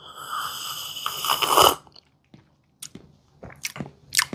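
A person taking a slurping sip of hot coffee from a mug: one whistly slurp of under two seconds, followed by several quick lip smacks.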